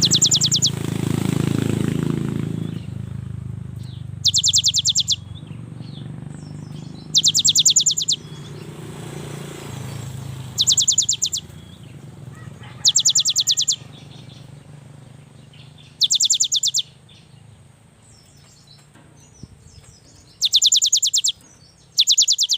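Cinereous tit (gelatik batu) singing: short, fast trills of high notes, each under a second long, repeated eight times about every three seconds. A low background rumble is heard in the first few seconds.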